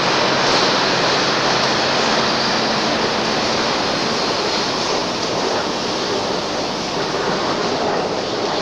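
Loud, steady roar of industrial machinery, with a low hum under it that fades out a few seconds in.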